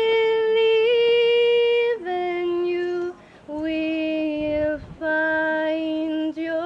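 A single high voice, unaccompanied, singing a slow melody of long held notes. The notes step down in pitch over the first three and then climb back up.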